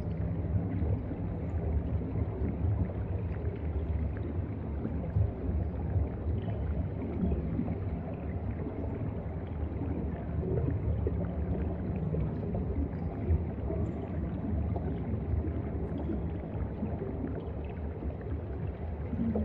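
Ambient sound heard underwater: a steady low rumble of moving water with scattered faint clicks.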